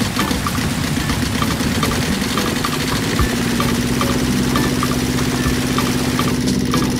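Small engine running steadily at idle, with an even hum that grows stronger about three seconds in.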